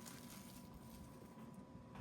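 Near silence: room tone with a faint low hum and a thin steady high tone.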